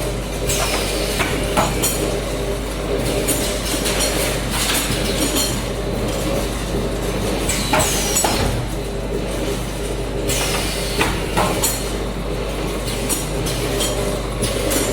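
Automatic bottle weighing, filling and capping line running, here filling snack chips: a steady machine hum with frequent sharp clanks and clinks from the bottles and mechanisms, some followed by a short falling hiss.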